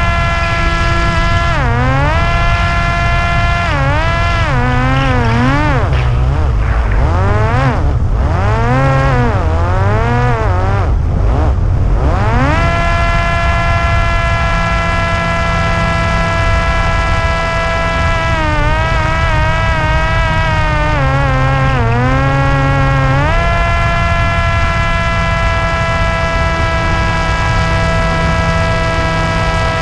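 Parrot Disco's electric pusher motor and propeller whining in flight, heard from onboard over heavy wind rush on the microphone. The pitch repeatedly dips and climbs back as the throttle is eased and reapplied, for several seconds from about two seconds in, and again briefly a little past the middle. Otherwise it holds a steady note.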